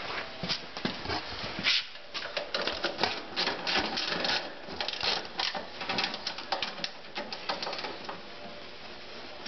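Rapid, irregular metallic clicking and clinking from a Wheel Horse snowthrower's roller chain and sprocket on a steel shaft as they are handled and turned by hand.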